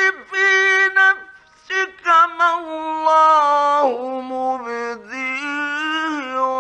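A man reciting the Quran in the melodic Egyptian mujawwad style, holding long, ornamented notes with a short break a little over a second in and the pitch stepping lower about four seconds in. The recording is an old 1950s Egyptian Radio broadcast.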